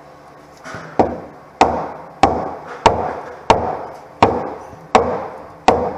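A hammer striking steel on the underside of a John Deere 850B crawler dozer: eight steady, evenly spaced blows about two-thirds of a second apart, starting about a second in, each ringing briefly.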